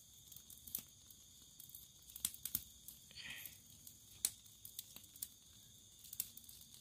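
Faint handling sounds of fresh green plant material: scattered small clicks and a soft rustle as a strip of young salak leaf is twisted around a split coconut-frond rib to tie it shut.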